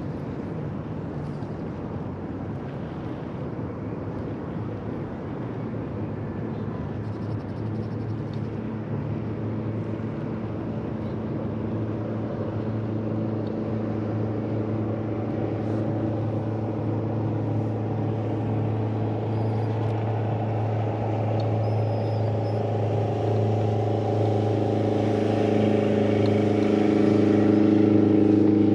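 Boat motor running steadily under way, gradually growing louder, with a stronger, higher drone building over the last few seconds.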